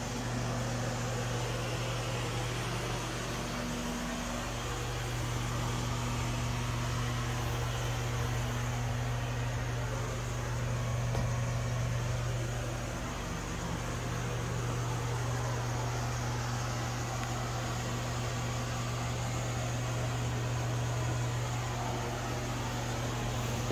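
Bathroom exhaust fan running: a steady low electric hum under an even airy hiss.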